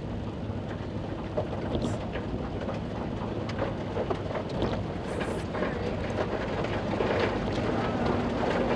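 A vehicle driving through floodwater full of hail: water and hail rushing and splashing against it, with many small knocks and a low engine hum underneath, growing a little louder near the end.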